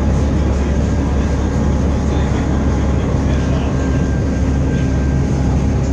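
Hill railway car running steadily uphill, heard from inside the carriage as an even, deep rumble with a faint steady whine above it.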